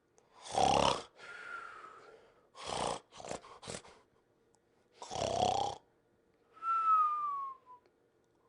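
Cartoon sleep sound: a rasping snore on the breath in, then a thin, falling whistle on the breath out, heard twice. Between the two cycles come three or four quick short snorts, about three seconds in.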